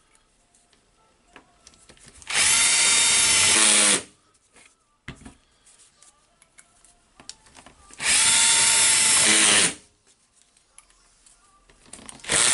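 Cordless drill-driver running in short bursts of about a second and a half, driving screws into the rotary hammer's housing. There are two full runs, and a third starts just at the end. Faint clicks of handling come between the runs.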